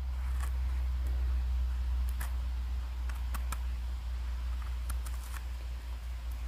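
Small curved knife scraping and trimming soil off the base of a porcini (Boletus edulis) stem: a scattered series of short scratchy scrapes and clicks. Under it runs a steady low rumble.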